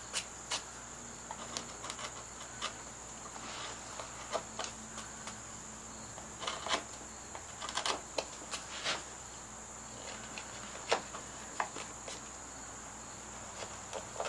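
Carving tool pushed by hand through Alaskan yellow cedar: scattered short clicks and scrapes as small chips are pared out and pop free. A steady high-pitched cricket trill runs underneath.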